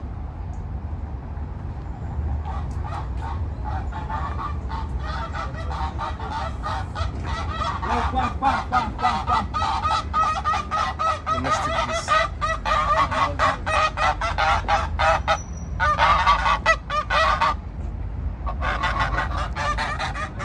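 Domestic waterfowl in a zoo pen calling: a long run of rapid, loud calls, several a second, starting about two seconds in, growing louder, breaking off for about a second near the end and then resuming.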